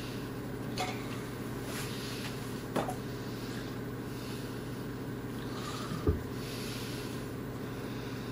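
Steady low hum of room tone with a few soft knocks and faint rustling; the loudest is a dull thump about six seconds in.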